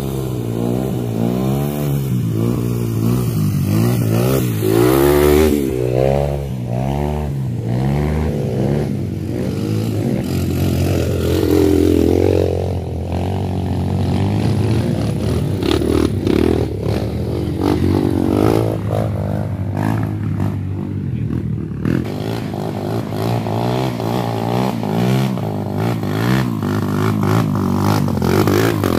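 Several trail motorcycles revving as they climb a muddy track. Their engine pitch rises and falls with the throttle, and one bike passes close near the end.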